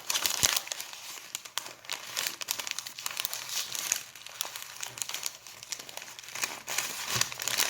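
Paper being crumpled and crinkled in the hands, a dense run of small crackles throughout, somewhat louder near the start and again near the end, made as a Foley imitation of rain.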